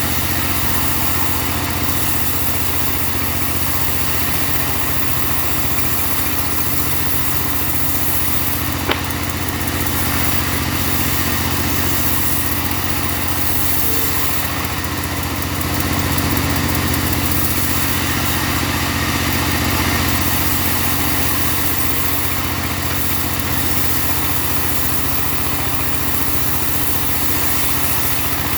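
Engine of a portable bandsaw sawmill running steadily under load while the mill saws timber. It swells slightly for a few seconds around the middle, with a single sharp tick about nine seconds in.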